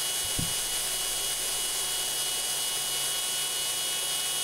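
Cooling fan of an AN/GRC-106 transmitter amplifier running steadily, a whooshing rush with a thin steady high tone. A single short low knock about half a second in.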